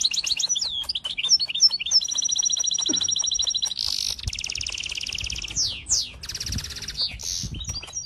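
European goldfinch singing: a fast run of high twittering trills and buzzy notes, with a long steady trill around the middle and a few quick sweeping notes near the end.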